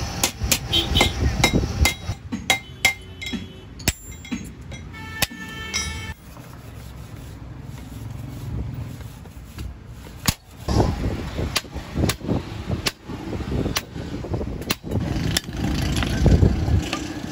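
Metalworking on a truck clutch disc: a drill press runs through the old rivets at the start, then come a run of sharp metal taps and hammer blows, some ringing briefly, as new rivets are set.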